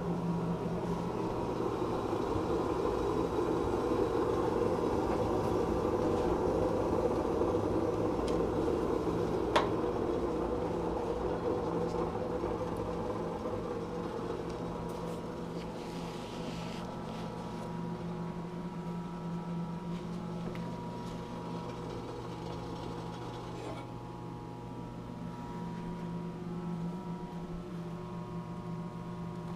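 A steady machine hum with a rushing noise that is strongest over the first dozen seconds and then fades. There is a single sharp click about ten seconds in.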